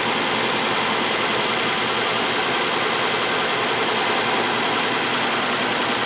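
2011 Dodge Avenger's 2.4-litre four-cylinder engine running steadily at idle with the cylinder 3 ignition coil unplugged, so it is misfiring on cylinder 3.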